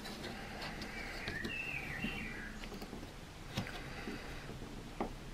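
Faint scraping and a few sharp clicks of a retractable utility knife cutting through a model building's wall on a cutting mat. A bird chirps briefly in the background about a second and a half in.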